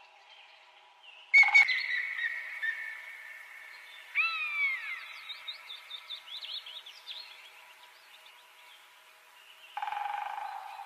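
Whistled bird-like calls over a steady high-pitched tone, starting with a sudden click about a second in; a quick run of falling chirps comes about four seconds in and again near the end.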